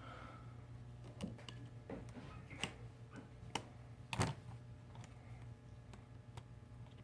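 Scattered small clicks and taps of a pry tool on a Samsung Galaxy S6's internals as its flex-cable connectors are unclipped, the loudest about four seconds in, over a steady low hum.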